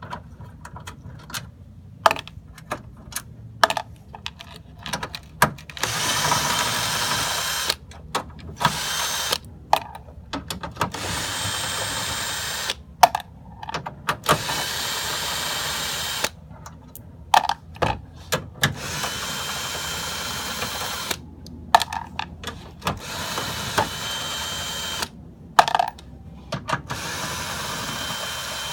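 Power drill-driver running in repeated bursts of one to two and a half seconds, backing out the fasteners that hold a car's front bumper, with clicks and knocks of handling between bursts.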